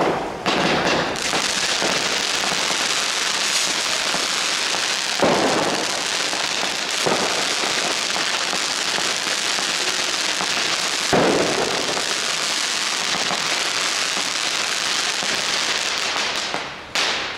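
Firework spewing sparks, a steady loud hiss and crackle that runs for about fifteen seconds and stops near the end, with two sharper bangs about five and eleven seconds in.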